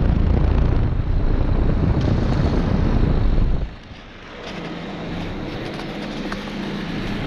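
Philco heat pump outdoor unit running loudly in heat mode, its Emerson scroll compressor and fan giving a steady rush. It shuts down abruptly about three and a half seconds in, leaving a fainter steady hum.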